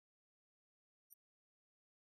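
Near silence, with one faint short click about a second in.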